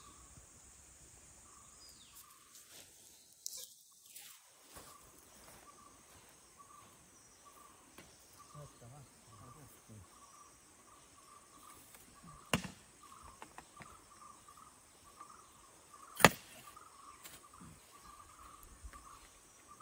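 Insects chirping in a steady pulsing drone in the background, broken by a few sharp knocks; the loudest comes about sixteen seconds in.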